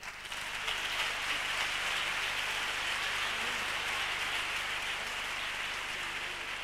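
Theatre audience applauding: a dense, steady burst of clapping that starts abruptly and eases off slightly near the end.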